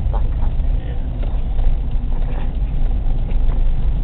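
Honda Fit driving through deep snow: a steady low rumble of engine and tyres heard from inside the cabin.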